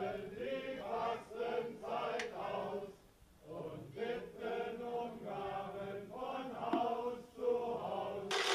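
Voices chanting in a sing-song, the rhymed call of the Easter Klappern, with a short pause about three seconds in. A loud rushing noise cuts in suddenly at the very end.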